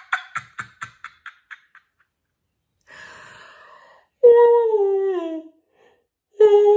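A man's voice: a run of short laughing pulses that slow and fade out in the first two seconds, a breathy in-breath, then two long voiced sighs, each sliding down in pitch.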